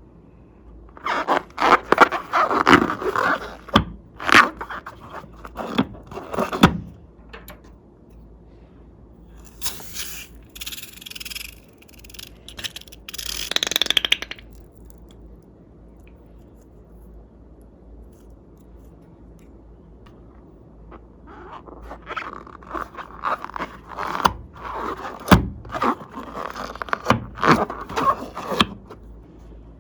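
Hands working slime and balloons: clusters of squishing, crackling and scraping noises in bursts, with a short hiss about halfway through.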